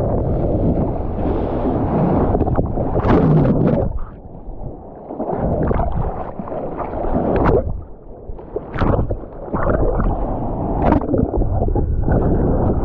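Ocean water rushing and splashing around a GoPro in the surf, with wind buffeting its microphone. The noise surges and drops back, easing briefly twice.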